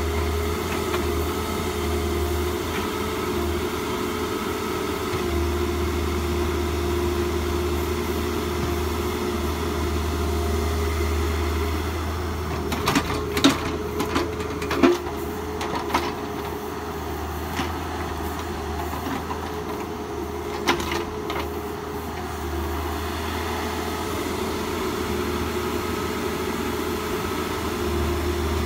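An engine running steadily with a constant low hum, and a cluster of clicks and knocks about halfway through.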